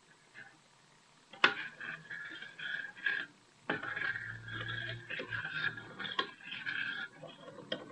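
A metal spoon stirring and scraping around a bowl of jelly mix that is dissolving, in two spells of a few seconds with a short pause between, with a sharp tap of the spoon against the bowl about a second and a half in and lighter taps later.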